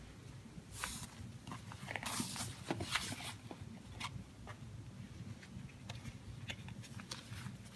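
Gift ribbon and a small cardboard jewellery box being handled: soft rustles as the ribbon is pulled off, with small clicks and taps as the box is turned over and its lid opened.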